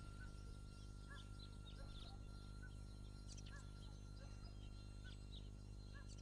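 Faint, scattered bird chirps, several short calls a second, over a quiet steady background hum.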